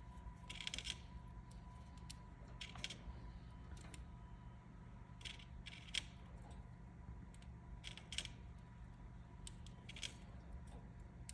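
A bird snoring in its sleep: short, soft, hissy breaths that come irregularly, about ten over eleven seconds, one a little longer near the start.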